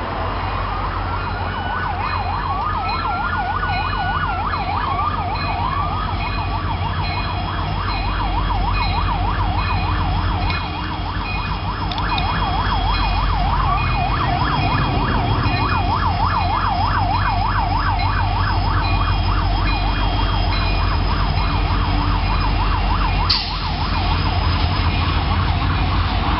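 Emergency-vehicle siren, a slow rising-and-falling wail for the first few seconds that switches to a fast yelp of about three to four cycles a second, over a steady low rumble of a passing train and road traffic.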